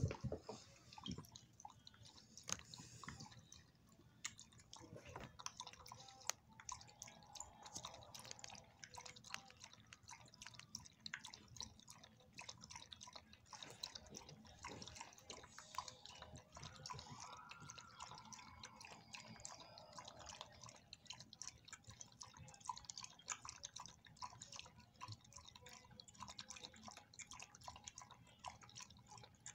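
Small dog lapping water from a bowl: a long, steady run of faint, quick wet laps.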